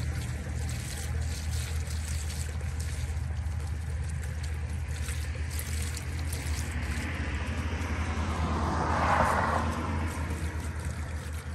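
Diesel fuel pouring from a plastic jug into a funnel in an engine, trickling and gurgling, swelling louder about nine seconds in. A steady low hum runs underneath.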